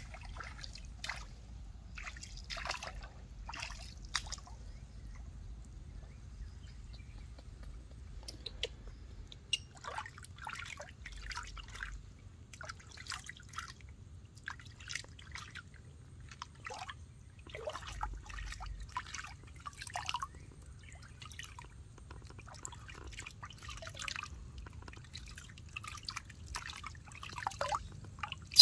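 Shallow stream water splashing and dripping as a person wades and dips a baby monkey in it with cupped hands, in short irregular splashes and trickles.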